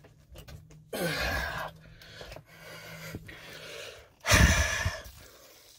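A man breathing out audibly twice: a breathy exhale about a second in and a louder, sharper one about four and a half seconds in.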